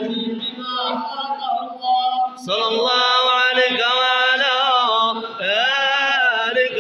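A group of men chanting madih, Arabic praise poems for the Prophet, together in long, wavering melodic lines. The chanting grows louder about two and a half seconds in.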